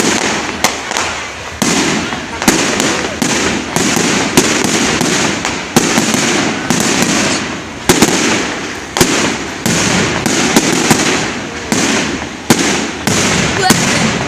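Fireworks display: a continuous barrage of sharp bangs, one or two a second, each fading off before the next, with no pause between them.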